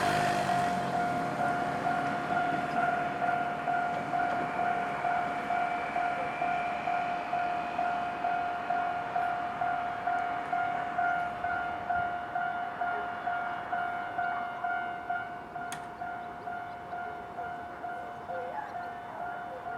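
A railway level-crossing warning bell on the Nankai Electric Railway ringing with an even repeating beat, slowly growing fainter. A train's rumble dies away in the first second or two.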